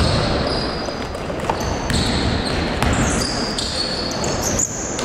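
Live basketball play in a large, echoing gym: the ball bounces on the court, with short high squeaks scattered through and players' voices in the background.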